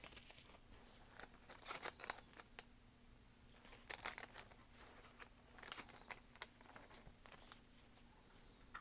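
Faint rustling and crinkling of packaging, in short scattered spells about every second or two, as a new phone case is taken out and handled.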